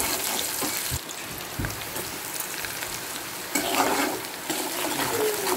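Sliced onions sizzling in hot oil in a metal wok as they are stirred, a steady crackling hiss. About three and a half seconds in, the sizzle flares louder for about a second.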